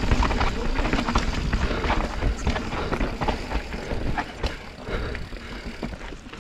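Mountain bike descending a dirt trail at speed, its tyres rolling over dirt and rocks with many short rattles and knocks from the bike. A steady low rumble of wind buffets the camera microphone.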